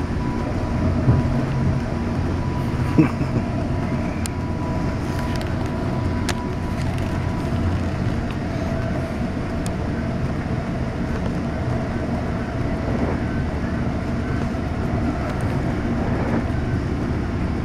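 Steady rumble of a moving commuter train heard from inside a 1978 Hawker Siddeley bilevel passenger coach, with a thin steady tone that fades out about five seconds in and a short knock about three seconds in.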